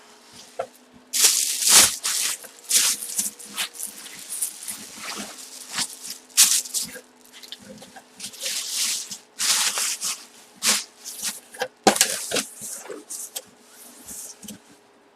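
Repeated short rustles and scrapes of packaging being handled, irregular and at times sharp, over a faint steady hum.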